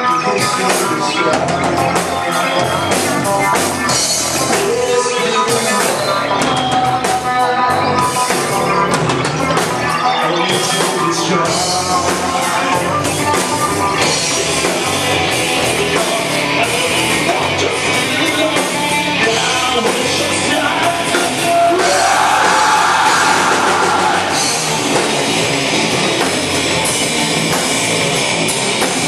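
Rock band playing live, with the drum kit driving the beat under a sung vocal line. The band grows briefly louder about three quarters of the way through.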